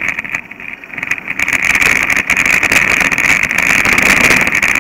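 Mountain bike rolling fast over a dirt trail: steady wind rush on the microphone, with rattling and clicking from bumps. It grows louder about a second and a half in.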